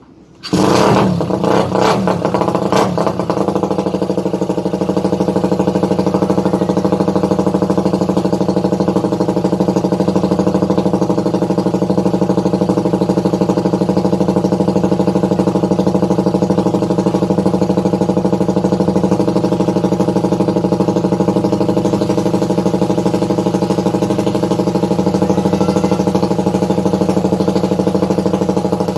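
Motorcycle engine started about half a second in, clattering for the first few seconds, then running at a steady idle for an exhaust sound check.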